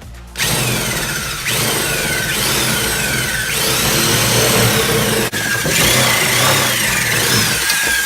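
A power tool cutting through a washing machine's sheet-steel lid: the motor runs under load with a harsh cutting noise, and the metal squeals again and again, each squeal sliding down in pitch.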